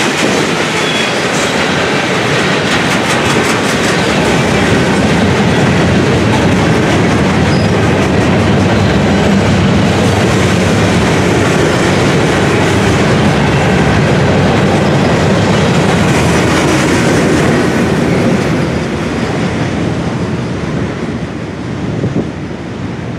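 Freight train's gondola cars rolling past, their wheels clattering steadily over the rails. The sound falls away late on as the end of the train goes by.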